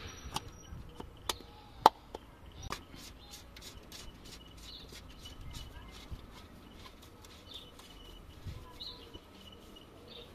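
Sharp plastic clicks and knocks as a new paper oil filter cartridge is pushed into its plastic cap and the filter housing is handled back into place on the engine, the loudest click about two seconds in. A fast, even, faint ticking follows in the middle.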